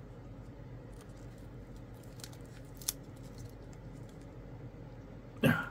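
Faint, sparse clicks and handling noise of small objects on a workbench while tape is readied, with one sharper click about three seconds in.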